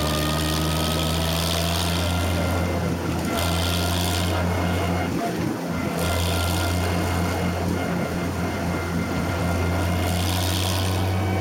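Farm tractor engine running steadily as it tows a passenger wagon, heard from the wagon behind it; the low hum eases briefly about five seconds in. A rushing hiss rises over it a few times.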